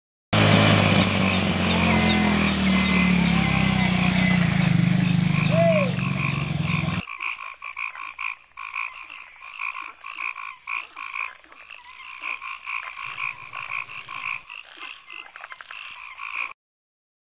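Frogs croaking in a steady, rhythmic chorus of short calls, about two or three a second. This is preceded by several seconds of louder outdoor noise with a low rumble that cuts off suddenly about seven seconds in.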